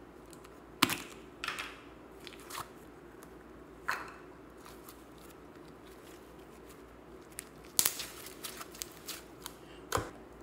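Slime handled and stretched by hand: sharp snaps and crackly pops in scattered clusters, with a soft plop near the end as the slime drops into the tub.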